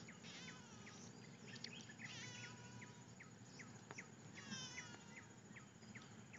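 Faint tropical forest ambience: birds calling in repeated short high chirps and a few brief warbling phrases over a steady insect hum.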